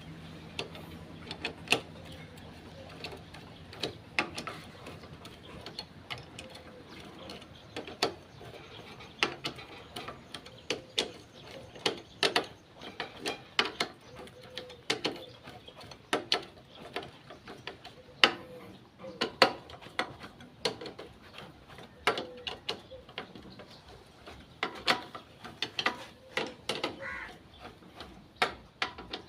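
Ratchet wrench clicking in short, irregular runs while the three 10 mm bolts holding the motorcycle's clutch springs and aluminium pressure plate are tightened a little at a time, in turn.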